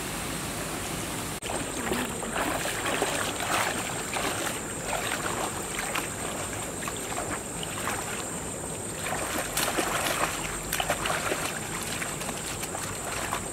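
Wading through shallow river water: legs sloshing and splashing in irregular surges, one stride after another, over a steady rush of water, with a thin steady high tone behind it.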